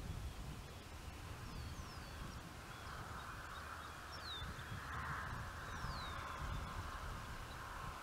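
Wind buffeting the microphone in uneven gusts ahead of a thunderstorm, with birds calling: several short falling whistles and a harsher, drawn-out sound swelling in the middle.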